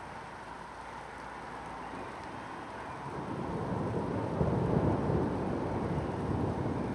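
Steady rain falling on forest foliage. About halfway through, a deep low rumble swells up under the rain and stays loud.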